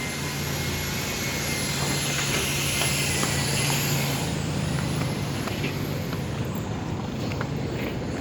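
Steady city traffic noise with a low engine hum and a thin high-pitched whine that dips about four seconds in and fades out soon after.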